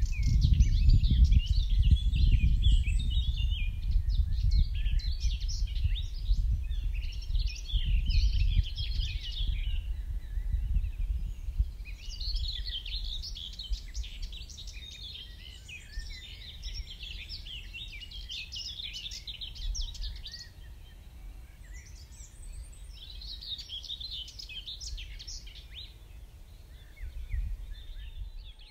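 Songbirds singing in a dawn chorus: bursts of high chirping song in phrases a few seconds long, with short breaks between them. Under the song runs a low rumble that is strongest in the first half and then eases off.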